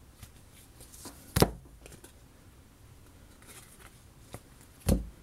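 Two sharp knocks about three and a half seconds apart, with faint rustling and ticking between them: a stack of baseball cards being handled and knocked down on a wooden table.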